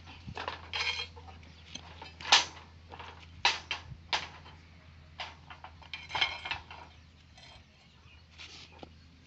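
Steel reinforcing bars clanking and knocking as they are handled for bending, with a few sharp metallic strikes, the loudest about two seconds in, and short rattles in between.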